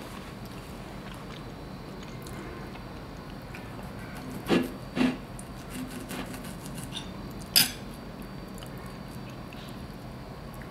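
Knife and fork cutting a cooked pork steak on a plate: two short scrapes half a second apart around halfway, a few softer touches, then a sharp clink of metal on the plate, over a faint steady hum.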